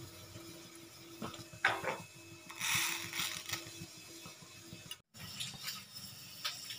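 Light metallic clinks of a steel ladle at a gas stove, and a brief hiss about three seconds in, while oil heats in the ladle for a tadka.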